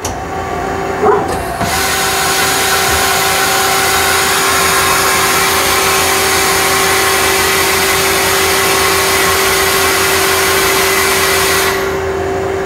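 Mazak CNC lathe tailstock retracting under program control: a short clunk about a second in, then a steady, loud hiss of machine travel over a constant motor hum, which stops suddenly shortly before the end as the tailstock reaches its retracted position.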